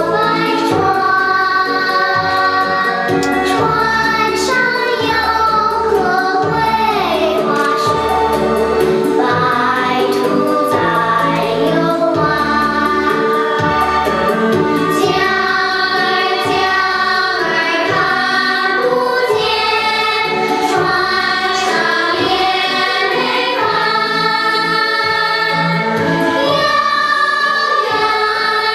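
Children's choir singing in parts over an instrumental accompaniment with a steady, evenly paced bass line.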